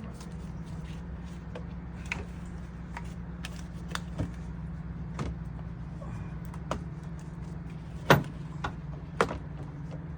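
Scattered plastic knocks and clicks as a car's air box is wrestled into place in the engine bay, the two loudest knocks near the end, over a steady low hum.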